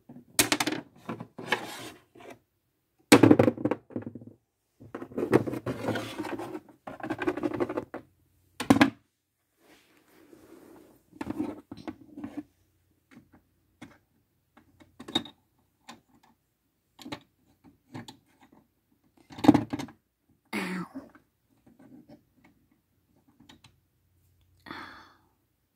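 Littlest Pet Shop plastic toy figures and a plastic compartment storage case being handled: irregular knocks, clicks and scraping, busiest in a stretch of a few seconds early on and then sparse taps.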